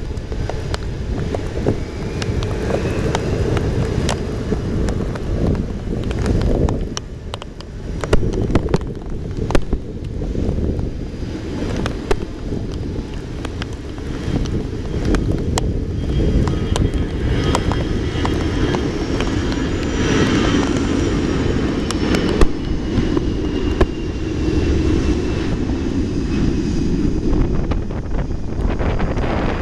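Airbus A320-212's CFM56 jet engines at take-off power during the take-off roll: a steady low rumble, with a faint whine that slowly falls in pitch over the second half as the aircraft passes. Heavy wind buffets the microphone throughout, with scattered clicks.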